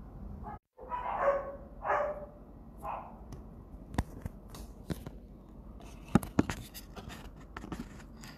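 A dog barking three times in the first three seconds. Several sharp clicks and knocks follow from a handheld phone being moved.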